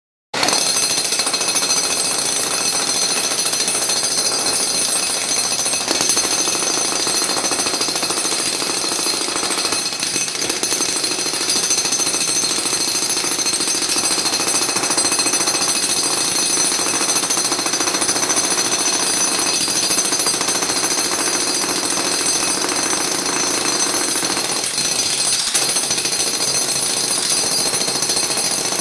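Loud, steady, rapid mechanical hammering with several high steady tones over it, starting suddenly a moment in.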